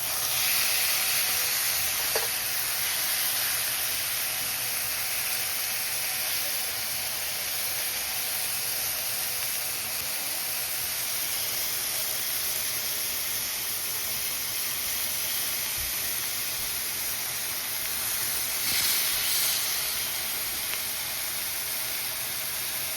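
Steak searing in a hot frying pan: a steady sizzle, swelling briefly about nineteen seconds in, with a small click about two seconds in.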